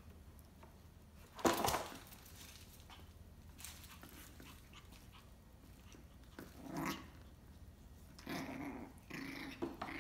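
Shih Tzu puppy growling in short low bouts at play, about six and a half seconds in and again near the end. One short, sharp, loud sound comes about a second and a half in.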